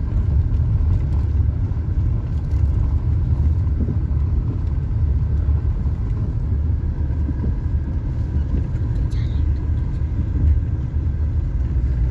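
Car cabin noise while driving down a steep, winding mountain road: a steady low rumble of engine and tyres heard from inside the car.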